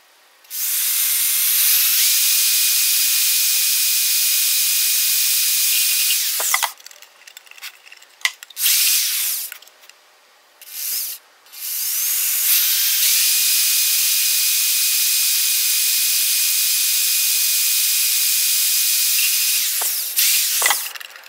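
Corded electric drill running as its bit bores holes through the thin wall of a clear plastic specimen container: a steady, high-pitched whine and hiss in a spell of about six seconds, a few short bursts, then a second spell of about eight seconds and a last short burst near the end.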